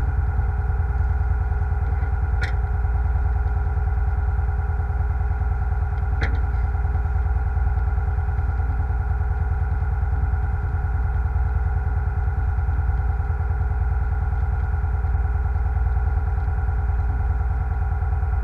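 Fishing boat's engine running steadily under way, a deep drone with a steady whine on top. Two short sharp clicks stand out, about two and a half and six seconds in.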